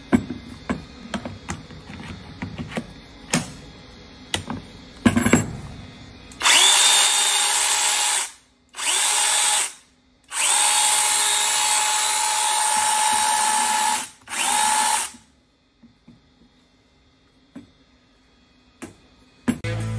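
A series of clicks and knocks, then a cordless battery chainsaw's electric motor run in four bursts of one to a few seconds each, a steady whine with short gaps between.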